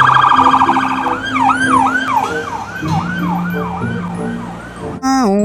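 Police car siren: a fast warble for about a second, then a yelping sweep that rises and falls about twice a second.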